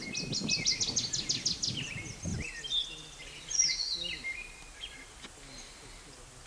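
A songbird singing: a fast run of repeated high notes, then varied, sliding phrases. A low rumbling noise underneath cuts off about two and a half seconds in.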